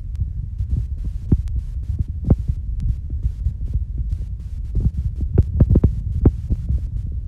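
Noise on a phone microphone as the phone is carried around: a steady low rumble with irregular thumps and clicks, which come thicker about five to six seconds in.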